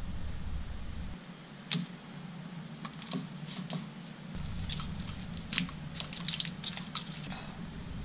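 Scattered short, sharp clicks and taps of small electronic parts and lamps being handled on a tabletop, bunched in the second half, over a steady low hum.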